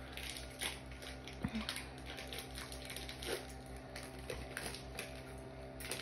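Foil Pokémon booster pack wrapper crinkling and tearing as it is opened by hand, with irregular sharp crackles.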